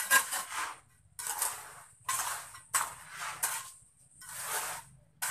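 Steel trowel scraping over fresh cement as a concrete floor is smoothed: about seven rasping strokes in quick succession, each starting sharply and fading.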